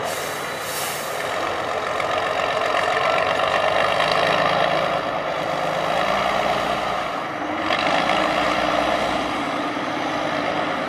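Tatra 813 8x8 trial truck's diesel engine working hard as the truck climbs through soft sand, its revs rising and falling. A brief hiss comes about a second in.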